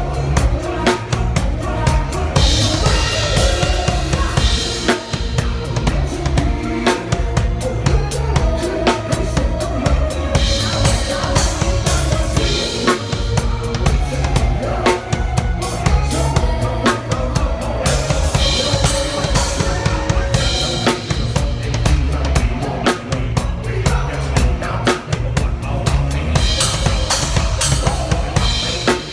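Drum kit played along to a Thai pop song's backing track: a driving bass drum and snare beat with dense cymbal strokes over the song's music.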